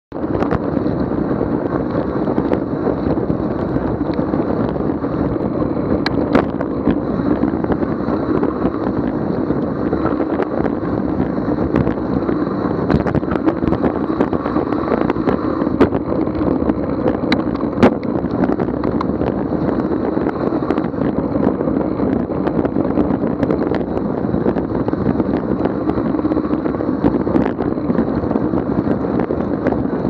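Steady noise of riding a fat bike along a packed-snow trail: wide tyres on snow and wind on the action camera's microphone, with scattered sharp clicks and knocks from bumps.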